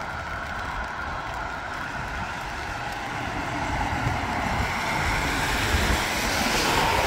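Car tyres hissing on a wet road, a steady wash of traffic noise that swells over the last few seconds as a car approaches.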